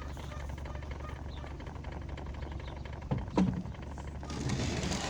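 A steady low motor hum, with a short knock about three seconds in and a rush of noise near the end.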